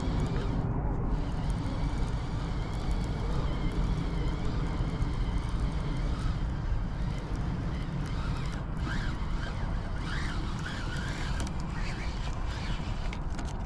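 Steady wind rumble and hiss on the microphone; a little past the middle, faint wavering tones rise and fall a few times.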